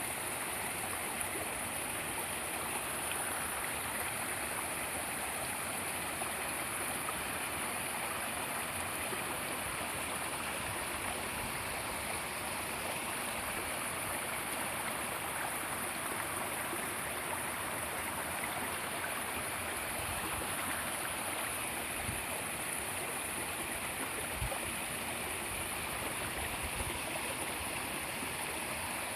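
Mountain stream flowing, a steady rush of water over rocks.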